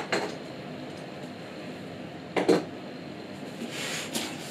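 Cardboard monitor box being handled and opened: a knock right at the start, a louder thump about two and a half seconds in, and a softer scrape of cardboard near the end.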